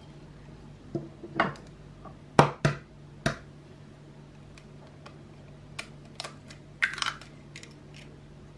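A few sharp knocks of an egg being cracked against the rim of a mixing bowl, then a short crackle near the end as the shell is pulled apart and the egg drops in. A faint steady hum underneath.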